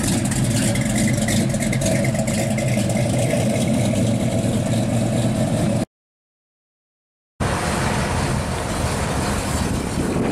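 Classic Chevrolet C10 pickup's dual exhaust rumbling steadily at low speed. A little over halfway in, the sound cuts out completely for about a second and a half, then comes back as rougher, noisier engine and exhaust sound.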